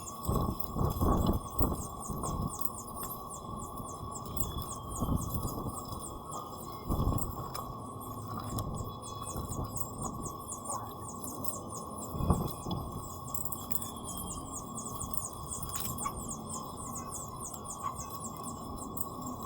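A steady, rapid high chirring like insects, over a steady tone, with a few dull low thuds: a cluster about a second in and single ones later.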